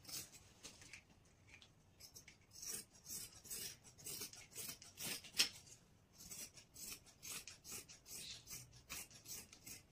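Large tailor's shears cutting through fabric folded four layers thick: a run of short snips and rasping cuts at about two a second, with a brief pause after the first cut.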